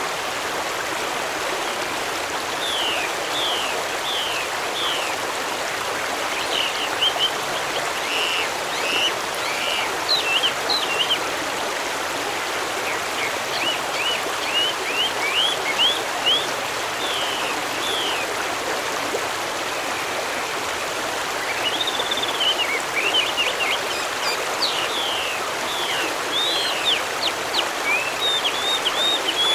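Steady rush of a flowing stream, with small birds chirping over it in runs of quick, high, sweeping notes that begin a few seconds in, pause briefly past the middle and return more densely near the end.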